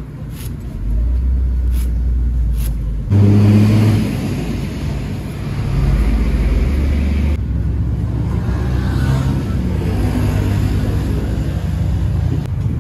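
Motor vehicle engines running and passing on the road beside the stall, a low rumble that swells to its loudest about three seconds in. Under it, in the first few seconds, a few sharp knocks of a cleaver chopping green onions on a wooden block.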